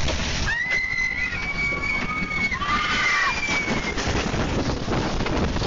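People screaming inside a bus as a tornado hits it: several high, held cries from about half a second in until about four seconds, over constant wind and rain noise with a few sharp knocks.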